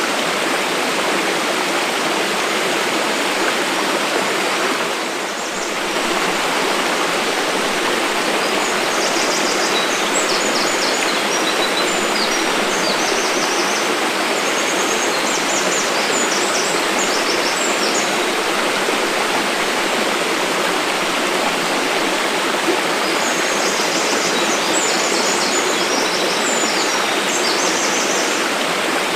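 Mountain waterfall rushing steadily, dipping briefly about five seconds in. Short high chirps come and go over the rush.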